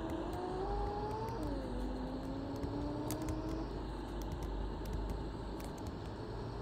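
Mercedes-Benz OC500LE bus pulling away under power: a drivetrain whine rises in pitch, drops suddenly about a second and a half in as the gearbox shifts up, then climbs again and fades out a couple of seconds later. A steady low engine rumble and small rattles run underneath.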